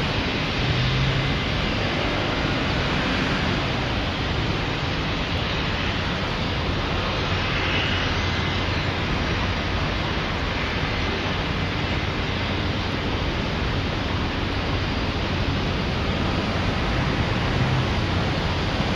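Steady wind rushing over the microphone, with a low hum underneath and no distinct events.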